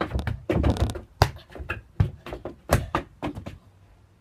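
A football being kicked up repeatedly in keepy-uppies: a run of dull thuds from the ball and feet on wooden decking, spaced about half a second to a second apart, stopping shortly before the end.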